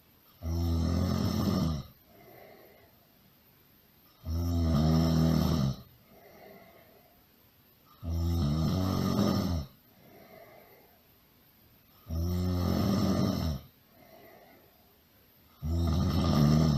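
Loud snoring in an even rhythm: five long snores, each about a second and a half, coming about every four seconds, with a faint breath between them.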